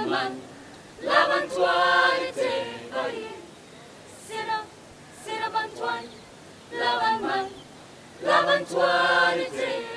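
Small group of young women singing together a cappella, in short phrases separated by brief pauses.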